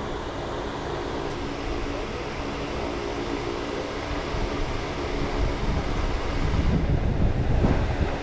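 A steady low mechanical hum mixed with wind buffeting the microphone. The low rumble grows stronger about six and a half seconds in.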